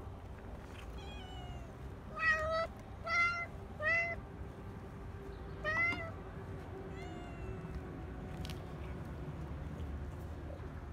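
Tabby cat meowing: a faint meow about a second in, then four loud meows in quick succession between about two and six seconds in, and a fainter one after, over a low background rumble.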